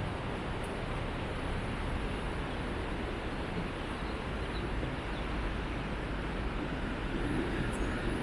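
Steady outdoor ambient noise: an even rushing haze with no distinct events.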